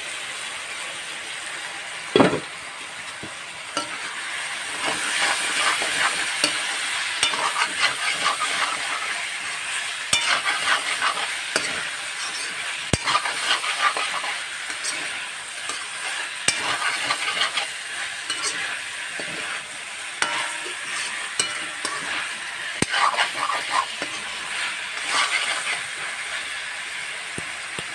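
Chicken pieces sizzling in a wok while a metal spoon stirs and scrapes them around the pan, with one sharp clank about two seconds in.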